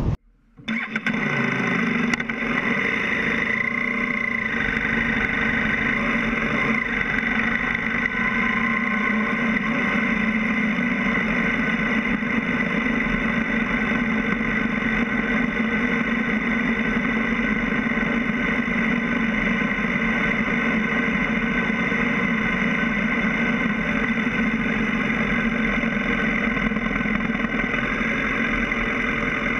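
BMW F650 GS motorcycle engine running steadily at low revs as the bike rolls slowly, heard from a camera mounted low on the bike. It comes in under a second in, after a brief silence.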